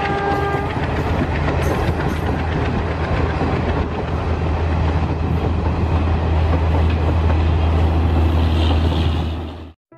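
Passenger train coaches rolling past, a steady heavy rumble and rail clatter. A horn of several steady tones stops just under a second in. The sound cuts off suddenly near the end.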